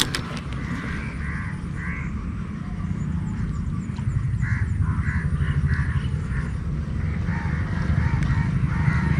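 Frogs calling in short, irregularly repeated croaks over a steady low rumble, with the calls thickening about halfway through.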